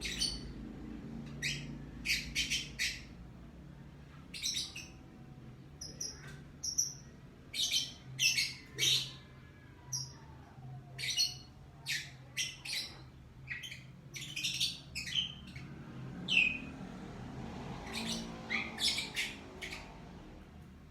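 Lovebird calling with many short, high-pitched chirps and squawks, coming in irregular clusters throughout.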